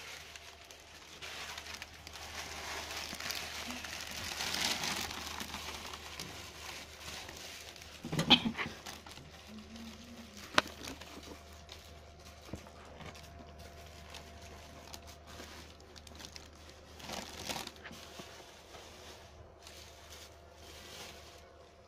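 Thin plastic shopping bag with a kitten inside it, rustling and crinkling. It is strongest over the first several seconds, with shorter bursts about eight and seventeen seconds in and one sharp click near the middle.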